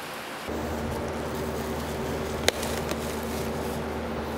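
A plastic garbage bag being handled, with a few light crinkles and one sharp click about two and a half seconds in, over a steady low machine hum that comes in about half a second in.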